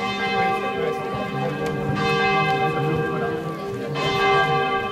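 Church bells ringing, the tones held and overlapping, with fresh strikes about two and four seconds in.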